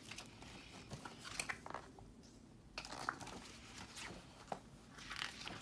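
Pages of a picture book being handled and turned by hand: a few soft, scattered papery rustles and light taps.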